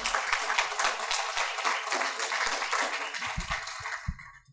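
Audience applauding, many hands clapping together, the applause dying away about four seconds in.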